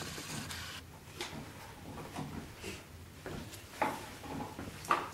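A dog moving about on a tiled floor with its nose down: scattered light clicks and knocks, a few of them sharper, about a second, almost four seconds and almost five seconds in.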